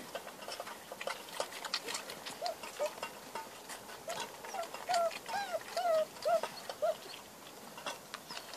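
Six-week-old Irish wolfhound puppies squeaking and whining in short high calls, most of them in the middle stretch. Quick clicks and clinks run through it as the puppies eat from metal bowls and nurse.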